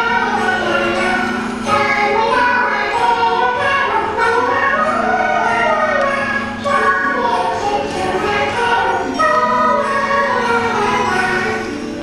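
Music with a choir of voices singing over a held low note, dropping in level near the end.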